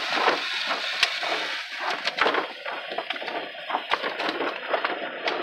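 Automatic car wash heard from inside the car: water spraying and wash brushes scrubbing and slapping on the windshield and body, a dense rushing noise with many irregular knocks and crackles.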